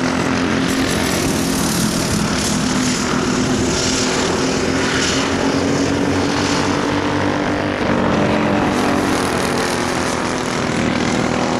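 Several Predator 212 go-kart engines, small single-cylinder four-strokes, racing together at high throttle with overlapping engine notes. About eight seconds in it gets a little louder as two karts pass closer.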